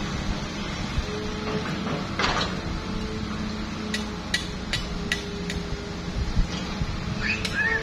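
Hitachi hydraulic excavator's diesel engine running under load as the arm and bucket work, with a steady drone and a whine that comes and goes. About four seconds in, five sharp clicks follow each other quickly.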